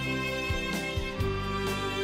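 Background music with held melodic notes over a regular beat.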